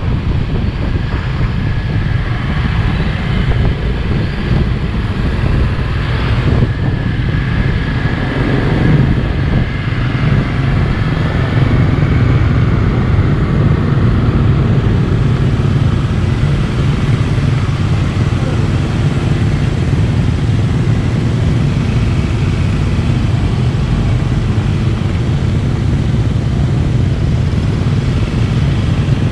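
Motor scooter engine running steadily at low speed among other motorcycles, with a constant low rumble that grows a little louder about halfway through.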